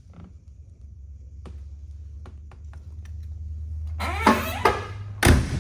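1967 Chevrolet Chevelle door being shut: a scraping, creaking sound about four seconds in, then one heavy thump as it closes near the end, over a steady low hum.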